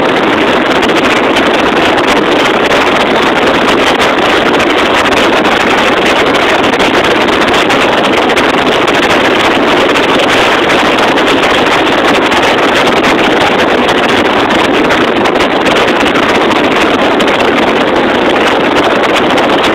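Twin supercharged engines of a Sea-Doo Speedster 200 jet boat running flat out at about 60 mph. Wind rushes over the phone's microphone in one loud, unbroken noise.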